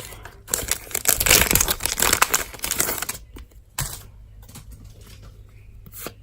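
Pokémon card booster pack wrappers crinkling as they are handled and torn open. The crackling is densest and loudest in the first three seconds, then gives way to quieter rustles and light taps.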